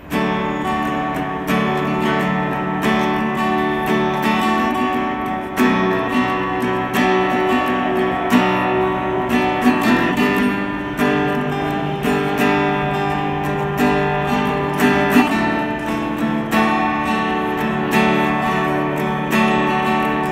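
Acoustic guitar strumming chords in a steady rhythm, with no voice.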